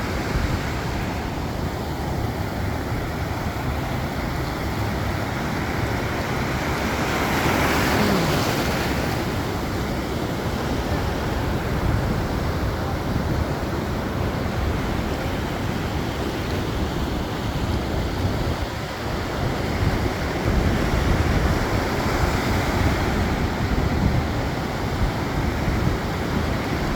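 Pacific Ocean surf: waves breaking and washing in with a continuous rush, swelling with a bigger wave about eight seconds in and again in the last few seconds. Wind buffets the microphone.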